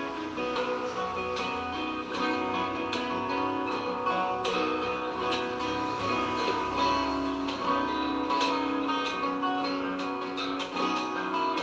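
Background music: plucked acoustic guitar playing a steady stream of notes.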